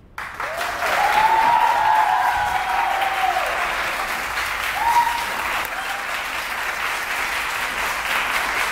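A roomful of people applauding, the clapping starting abruptly just after the speech ends and going on steadily.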